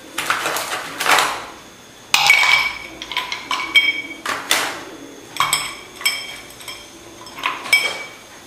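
Frozen coffee ice cubes rattling as they are picked from a plastic tray, then dropped one by one into a glass tumbler. Each cube lands with a sharp clink and a short ring of the glass, several times over.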